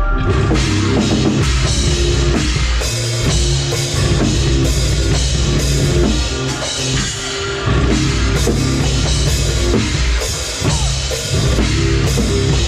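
Live rock band playing loud: a drum kit with bass drum and cymbals driving a steady beat under bass guitar.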